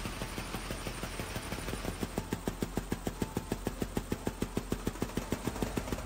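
Motor-driven wing-flapping mechanisms of robotic bird drones running on test stands: a fast, even mechanical ticking, about eight ticks a second, over a steady hum. The ticking grows louder about two seconds in.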